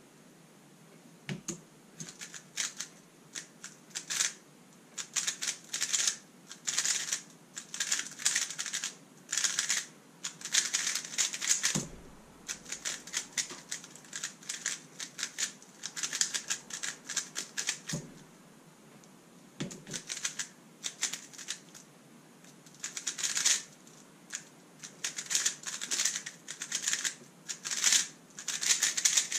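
Thunderclap v3 M magnetic 3x3 speedcube being turned very fast, a dense rapid clicking and clacking in long bursts, with a few soft thuds in the pauses between them.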